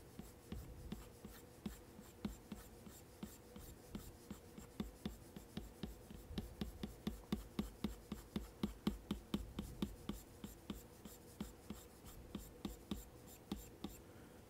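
Apple Pencil tip tapping and flicking across an iPad Pro's matte screen protector in quick, short hair strokes. These are faint scratchy ticks, about two to four a second, coming fastest in the middle.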